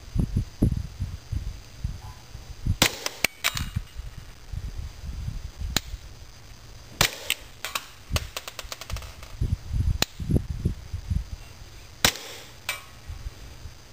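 Pistol fired shot by shot at irregular intervals, each a sharp crack, with a quick string of shots about halfway through. Wind buffets the microphone between shots.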